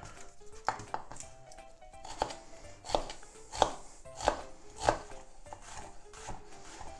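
Chef's knife chopping an onion on a wooden end-grain cutting board: a series of separate knife strikes against the board, the loudest about halfway through.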